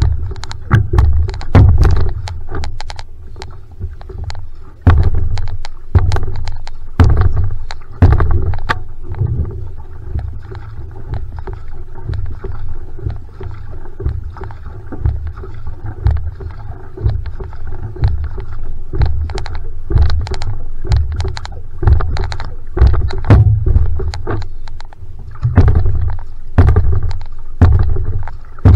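Single-blade paddle strokes driving a one-person outrigger canoe (va'a), each catch and pull a splash and swirl of water about once a second. Low rumbling surges and sharp water clicks go with the strokes.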